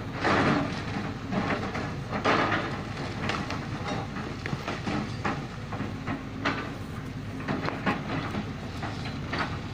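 Lonking hydraulic excavator's diesel engine running under load, with irregular clanks and rattles of rock and the steel bucket, and louder scraping bursts about half a second in and just after two seconds.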